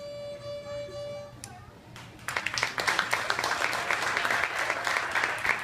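A violin's final held note rings and stops about a second in; after a short pause an audience breaks into applause.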